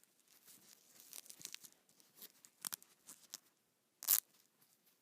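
Velcro hook-and-loop fastener being pulled apart. First comes a slow, crackly peel in many small rips over about three seconds, then one quick, louder rip about four seconds in.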